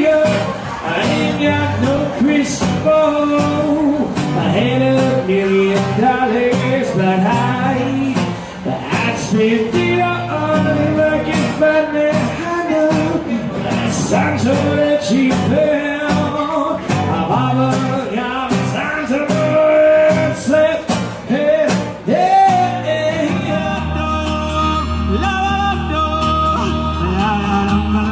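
A male singer singing over a strummed acoustic guitar. Near the end the music cuts abruptly to another song with a steadier, heavier bass.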